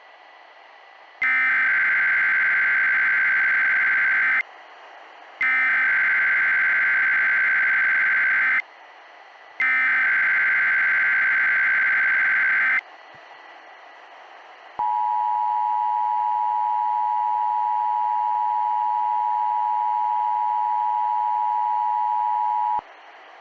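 Simulated Emergency Alert System alert on NOAA Weather Radio. Three harsh, buzzing bursts of SAME digital header tones, about three seconds each with short gaps between them, are followed by the steady two-tone EAS attention signal held for about eight seconds, over faint radio hiss. The sequence opens a tornado watch alert.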